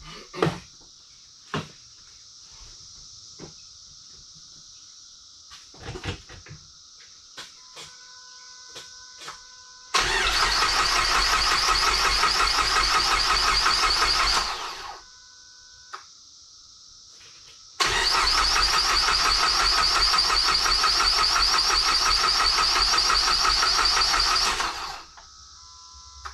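Starter motor cranking the Dodge SRT-4's turbocharged 2.4-litre four-cylinder over without starting it, twice, about five seconds and then about seven seconds, each crank cutting off sharply: fuel pump and coil are disconnected so the engine turns without firing, to pump oil into the new filter and turbo. Electronic dash chime tones sound before each crank.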